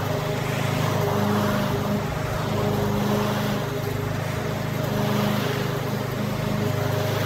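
Masport walk-behind petrol lawn mower running steadily as it is pushed across grass, its engine note holding an even pitch.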